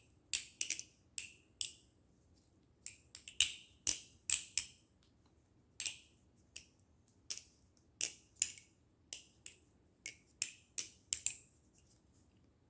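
Balisong (butterfly knife) with Zen pins being flipped: an irregular run of sharp metallic clicks, often in quick pairs and clusters, as the handles swing and strike the pins and each other; the clicking stops shortly before the end.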